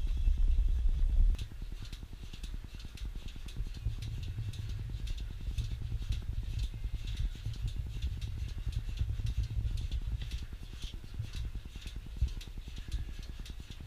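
A milking machine running: a low hum, loudest for the first second or so, then a steadier low drone with repeated sharp clicks from the pulsators.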